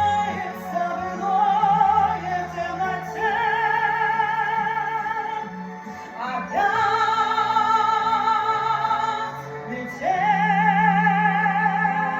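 Music: a song's high melody held in long notes with wide vibrato, sliding up into a new note twice, over a steady low accompaniment.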